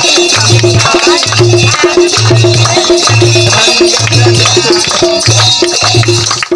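Loud instrumental stretch of a Hindi devotional bhajan without singing: a deep drum beat about once a second over busy high percussion, with the dancing crowd clapping along.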